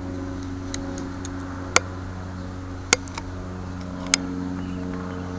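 Utility knife blade scoring lines into a wooden walking stick, giving a handful of sharp ticks and clicks, about five over a few seconds, over a steady low hum.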